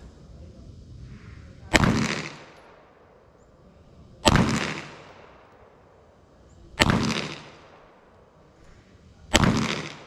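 Four single shots from a semi-automatic pistol, evenly paced about two and a half seconds apart in slow, aimed fire, each with a short fading tail.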